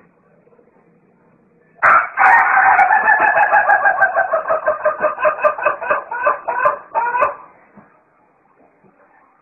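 White rooster crowing one very long crow, starting about two seconds in and lasting some five seconds, its held note breaking into a rapid stutter of about four pulses a second before it stops.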